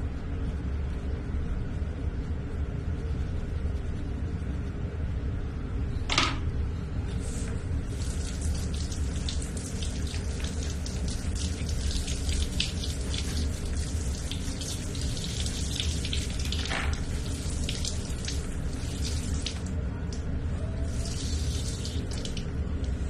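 A toothbrush scrubbing a small monkey's teeth: from about seven seconds in, runs of quick, scratchy brushing strokes, over a steady low hum. A single sharp click comes about six seconds in.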